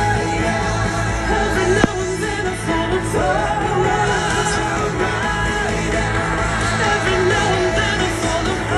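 Pop music with a singing voice, played for a fireworks display, with one sharp firework bang about two seconds in.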